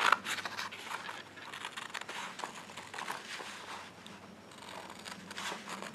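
Scissors cutting through wallpaper: irregular short snips with the paper rustling, a sharper snip right at the start and a quieter stretch after about four seconds.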